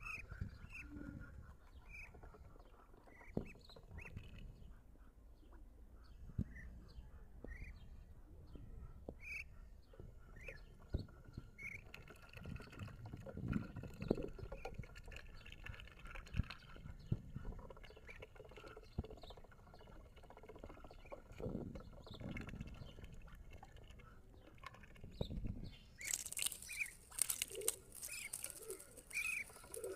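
Birds chirping with short, repeated rising peeps as they are fed, among scattered light knocks. Near the end comes a louder stretch of rustling and wing-flapping with more chirps.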